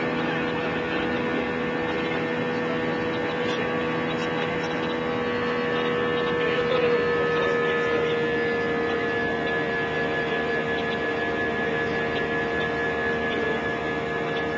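Cabin noise of an Airbus A320-family jet climbing after takeoff: a steady engine and airflow drone carrying several steady humming tones. The tones shift slightly about halfway through as the sound gets a little louder.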